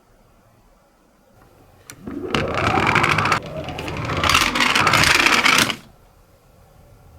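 Toy minicar ambulance rolling down a slope, its small wheels whirring and rattling against the track with fast fine ticking. A single click comes first; the rolling runs for about three and a half seconds with a short dip partway, grows louder, then stops suddenly.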